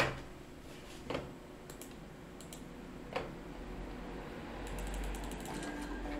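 A few sharp, isolated clicks from computer mouse and keyboard use, spaced a second or two apart, with fainter ticks between them over a low hum.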